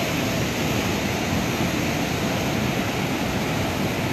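A river in flash flood: turbulent, muddy floodwater rushing past in a steady, unbroken roar of churning water.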